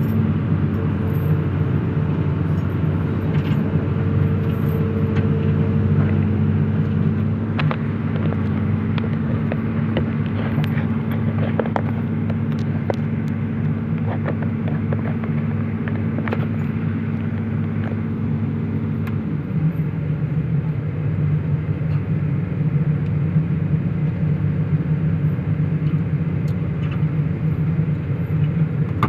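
Heavy diesel engine of construction machinery running steadily, with scattered short metallic knocks in the middle stretch. A little past halfway its note shifts down slightly.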